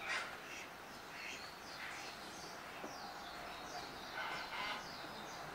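Small birds chirping in the background, a scatter of short high calls.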